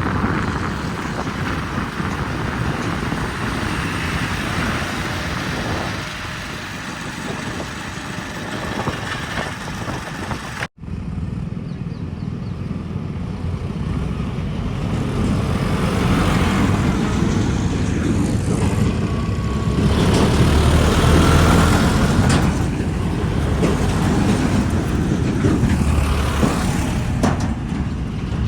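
Heavy diesel engines of tractors or a backhoe running under load. The sound cuts out abruptly for an instant about a third of the way in, then carries on and grows louder.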